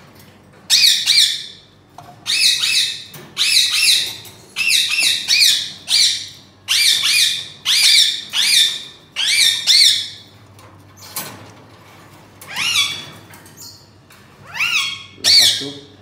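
Indian ringneck parakeet squawking: loud, harsh calls in a quick series, one or two a second for about ten seconds, then a pause and two more near the end. The bird is calling eagerly while it waits for its meal of vegetables.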